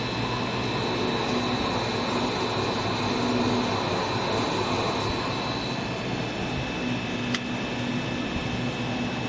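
Steady hum of an H-beam assembly-welding-straightening machine with its conveyor rollers driven in reverse. A high whine fades out about six seconds in as the conveyor comes to a stop, and a single sharp click follows about a second later.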